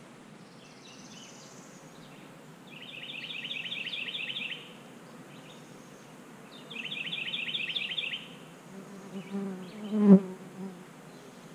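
Honeybees buzzing around nucleus hives, one flying close past the microphone just after ten seconds in, where the buzz rises and falls sharply. Earlier, a high, rapid pulsing trill comes twice, each time for about a second and a half.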